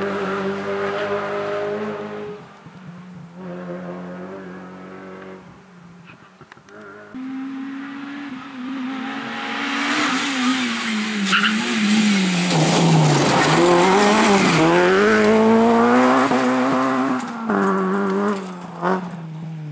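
Honda Civic Type R rally car's four-cylinder engine revving hard through a series of short passes, its pitch rising and falling with gear changes. The loudest pass comes about halfway through, with the note dipping low and then climbing again as the car brakes into a bend and accelerates out.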